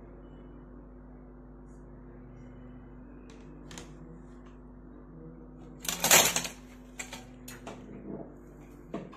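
Handling noise from an LCD display module being moved by hand inside an opened keyboard: a loud cluster of clattering clicks about six seconds in, then a few scattered clicks and knocks. A steady low electrical hum runs underneath.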